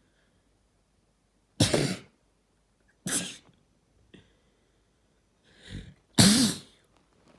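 A person sneezing three times: two sharp sneezes about a second and a half apart, then a short build-up breath and a third, loudest sneeze near the end.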